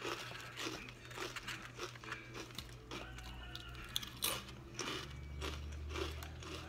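A person chewing a mouthful of food close to the microphone, with soft, scattered crunches.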